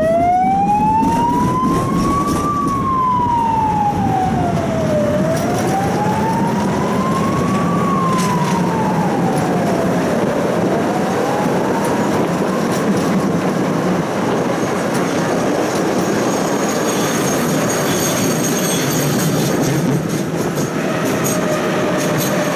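An emergency-vehicle siren wailing slowly up and down, about one rise and fall every five seconds, fading out about halfway through. Under it runs the steady rumble of a tram running on its rails, with a faint high thin ringing coming in near the end.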